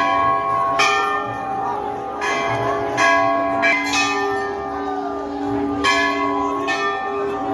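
Brass temple bells rung over and over by hand, a fresh strike about every second, each one ringing on with several clear tones that overlap the next.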